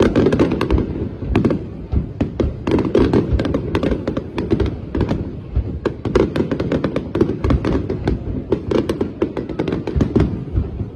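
Aerial fireworks display: a dense, continuous barrage of shell bursts, sharp bangs coming several a second, with crackling stars and a constant low rumble of explosions.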